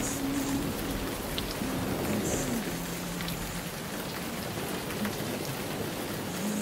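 Heavy rain pelting the roof and windshield of a car, heard from inside the cabin as a steady hiss. A deep low rumble underneath dies away about halfway through.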